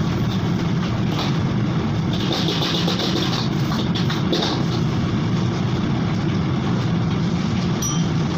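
Gas wok burner running with a loud, steady rumble, while a metal ladle scrapes and knocks against the wok, stirring and tossing fried rice. A hiss of sizzling comes and goes in the first half.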